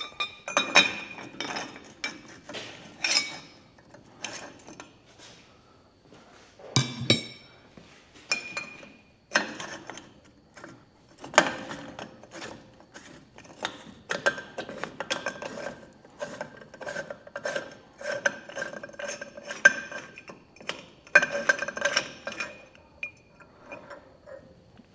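Metal tools clinking and clicking against a Toyota Hilux front wheel hub as the second wheel bearing nut is undone with a 41 mm socket: irregular sharp metallic clicks with a brief ring after many of them.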